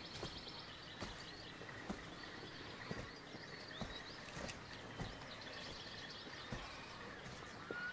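Small birds chirping in quick repeated twitters over faint outdoor ambience, with soft footsteps on grass about once a second.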